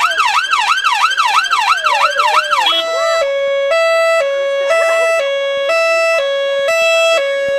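Emergency-vehicle siren being switched through its tones: a fast yelp rising and falling about three times a second, then from about three seconds in a two-tone hi-lo pattern switching pitch about every half second.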